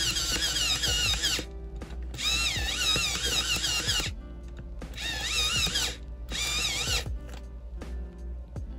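Electric pencil sharpener's motor whirring as a pencil is pressed in to grind a blunt tip, its pitch wavering as the blades cut. It runs in three bursts with short breaks and stops about seven seconds in.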